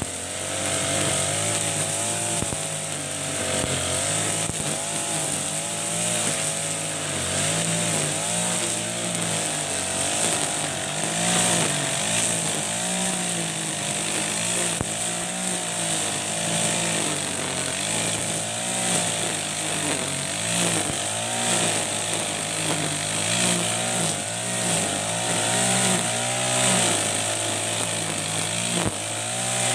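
Backpack brush cutter powered by an Ogawa GX35 single-cylinder four-stroke engine, running at cutting speed while its spinning nylon line cuts tall grass. The engine note wavers up and down as the line sweeps through the grass.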